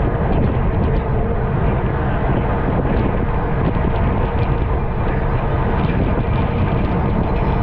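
Steady heavy rumble of wind buffeting the microphone of a camera on a racing bicycle at speed, with faint irregular ticks above it.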